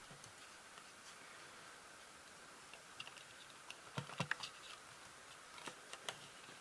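Light clicks and taps of a small hard object being handled, a cluster about four seconds in and two more near the end, over faint room tone.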